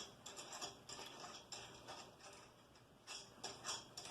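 Faint, scattered metallic clicks and light taps as a wrench and nuts are worked to take off a drill press's spring cover, with a short cluster of louder clicks about three seconds in.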